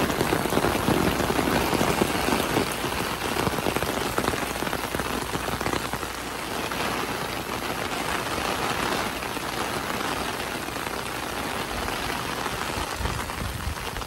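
Heavy rain pouring down steadily.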